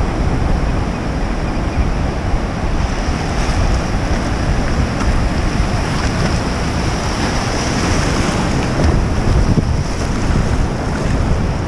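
Ocean surf washing and foaming through shallow water, with wind buffeting the microphone as a steady low rumble.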